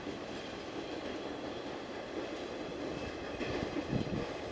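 Freight train of autorack cars rolling past, a steady rumble and rattle of wheels on rails. A cluster of louder clanks comes about three and a half seconds in.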